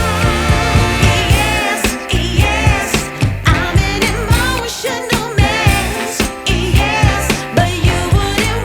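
Background pop music with a steady beat and a singing voice.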